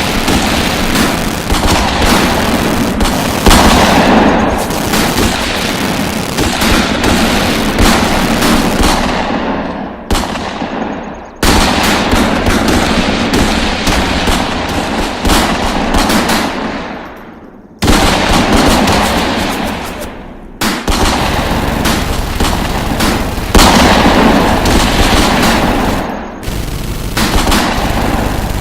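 Sustained bursts of rapid automatic gunfire from a gunshot sound-effects track, shots packed close together and dense. The firing breaks off or fades out briefly a few times before starting again.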